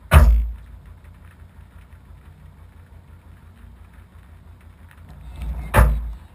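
Subaru Impreza rally car's engine idling steadily while the car stands still, with two sharp thumps: one at the start and one near the end.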